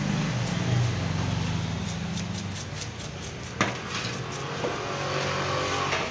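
A motor engine running, heard as a steady low hum that dies away after about two and a half seconds. Over it is a knife scraping across fish on a wooden block, with a sharp knock about three and a half seconds in.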